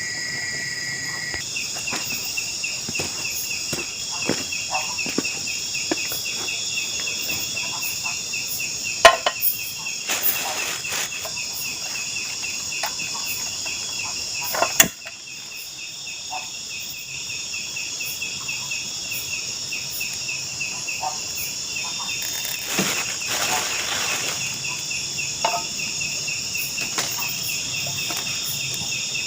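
A dense chorus of forest insects: a fast, evenly pulsing trill under a steady high buzz. A few small clicks and knocks sound over it, with two sharp loud knocks about nine and fifteen seconds in.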